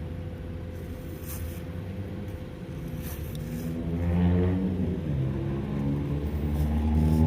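A motor vehicle's engine running close by, its pitch shifting up and down and getting louder from about four seconds in and again near the end. A few short, faint hisses of an aerosol grease spray come in between.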